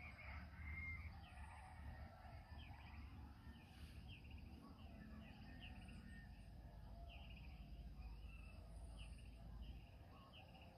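Faint dawn chorus of small animals calling: many short chirps repeating from several directions, over a low steady rumble.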